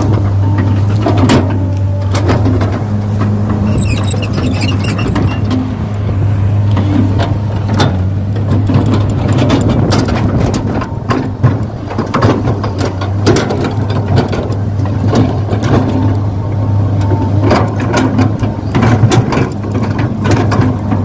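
Radio-controlled model excavator (a Kobelco SK200 replica) working dirt: a steady low engine-like drone, with frequent short scrapes and clicks as soil is pushed and scooped.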